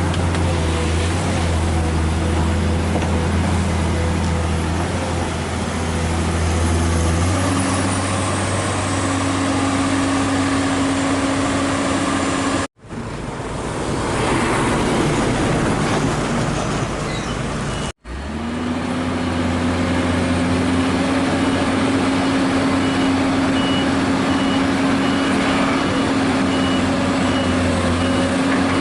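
Heavy diesel engines of trucks and an excavator running steadily, the engine note rising about seven seconds in. The sound drops out briefly twice, and a faint intermittent beeping comes in during the second half.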